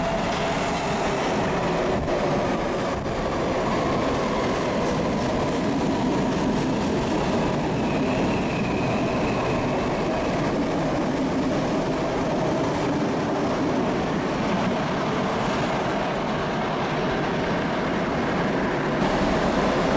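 PATCO Speedline electric train running into the station platform: a steady rumble of steel wheels on the rails, with a faint high squeal about halfway through.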